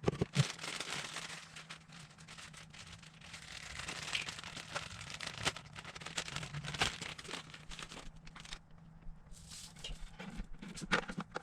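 Rustling and crinkling of plastic packaging with small plastic clicks as an aquarium power filter is unpacked and handled.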